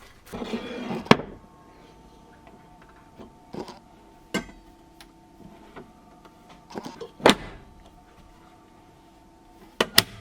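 Handling of a Minix The Plender food waste dryer: a brief rustle, then a sharp click about a second in, followed by a few scattered clicks and knocks over a faint steady hum.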